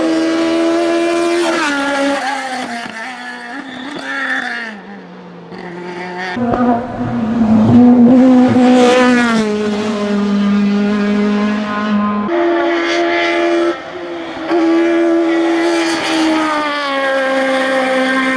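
A rally kit car's four-cylinder engine at full throttle, revving hard and shifting up repeatedly: the pitch climbs and then drops sharply at each gear change. It is loudest about halfway through as the car passes close by.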